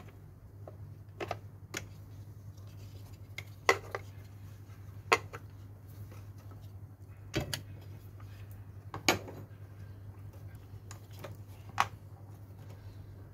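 T-handle box spanner and engine parts being handled: about seven sharp, separate metallic clicks and knocks a second or two apart, over a steady low hum.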